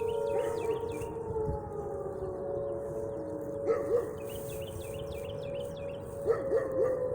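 Outdoor tornado warning sirens sounding a steady tone during a siren test, several sirens at slightly different pitches, some drifting slowly lower.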